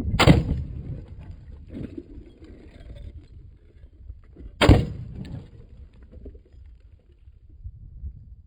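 Norinco SKS rifle firing two shots of 7.62×39mm, about four and a half seconds apart, each a sharp crack with a short ringing tail.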